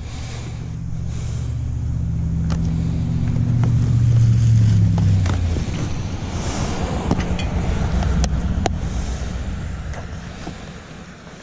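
A motor vehicle's engine running with a low, steady hum that swells to its loudest around the middle and then fades. Several sharp clicks come in the second half.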